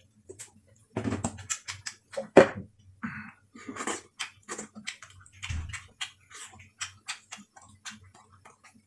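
Crispy fried snack tipped out of a glass jar onto a plate, then crunched as it is eaten: many short, irregular crisp crunches.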